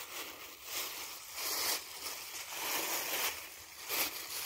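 Plastic bags rustling and crinkling in several short bursts as hands rummage in them.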